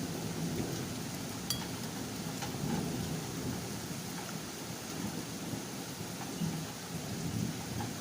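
Steady rain falling, with a low rumble underneath and a faint click about one and a half seconds in.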